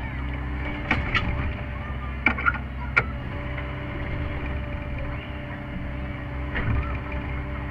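Sany SY50U mini excavator's diesel engine running steadily under load, with a handful of sharp clanks and knocks as the tooth bucket digs around a buried stone. The knocks come in a cluster in the first three seconds and once more near the end.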